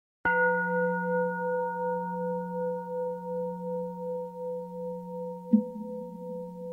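A singing bowl struck once: a deep ringing tone with several higher overtones that hangs on and slowly fades, wavering steadily in loudness. About five and a half seconds in, a short knock sounds over the ringing.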